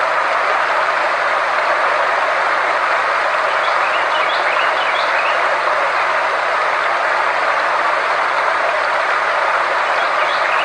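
Steady rushing noise from a frequency-therapy sound track, with a faint low hum underneath. A few faint chirps sound about four seconds in and again near the end.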